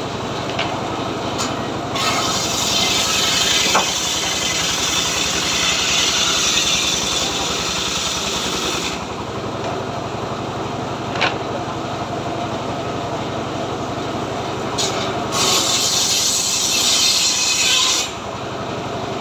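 Homemade circular log saw running steadily, its blade ripping lengthwise through a log to cut boards, once from about two seconds in to about nine seconds and again from about fifteen to eighteen seconds, with the blade running free in between.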